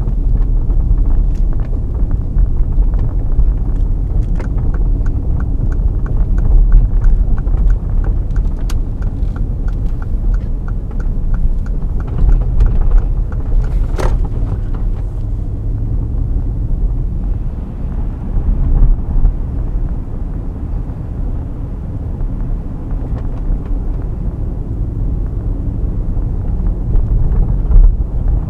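2013 Mercedes-Benz GL 63 AMG's 5.5-litre twin-turbo V8 and tyres giving a steady low rumble as the SUV drives through town. A run of light regular ticks in the first half and a single sharp click about halfway through.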